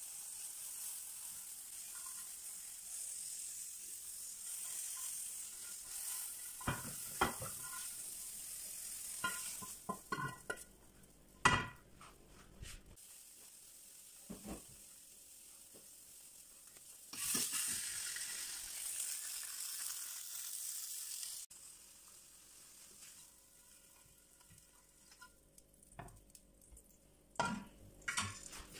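Food sizzling as it fries in a frying pan, the sizzle coming and going, with scrapes and knocks of a spatula against the pan and plates. The loudest is a single sharp knock about a third of the way in.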